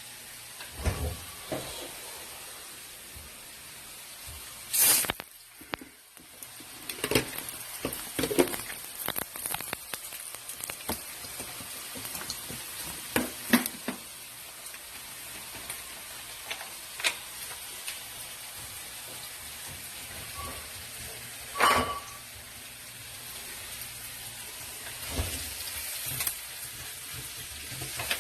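Food sizzling in a frying pan, a steady hiss, with scattered knocks and scrapes of a utensil stirring it against the pan.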